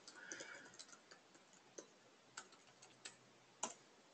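Faint, separate keystrokes on a computer keyboard as a terminal command is typed and entered, about seven soft clicks with the loudest near the end, over near silence.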